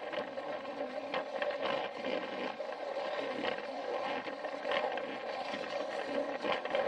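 Battery-powered Plarail toy train running on plastic track: its small motor and gearbox give a steady hum, with irregular clicks and rattles as the wheels pass over the track joints.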